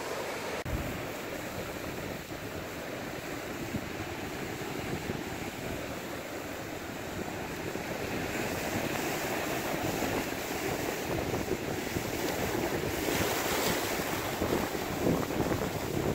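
Surf washing and breaking over shoreline rocks, with wind buffeting the microphone. The rush grows louder in the second half, with a brighter, hissier surge about thirteen seconds in.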